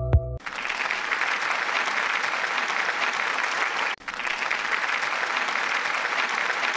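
Steady crowd applause, starting just as a last synth note dies away, with a momentary break about four seconds in.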